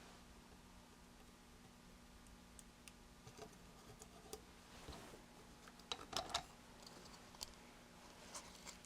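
Faint, scattered clicks and light taps of small parts and tools being handled during electronic kit assembly, with a short cluster of sharper clicks about six seconds in, over a low steady hum.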